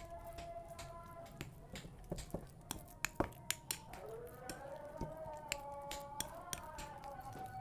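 Irregular sharp clicks and taps, several a second, over slow held notes that drift in pitch, like quiet background music.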